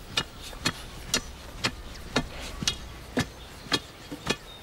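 Hammer blows struck at a steady pace, about two a second, sharp knocks with no ringing between them, at an upright timber post.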